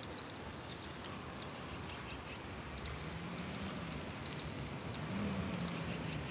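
Quiet outdoor ambience: irregular sharp high-pitched ticks, several a second, over a low hum, with a faint low tone that rises and falls in pitch in the second half.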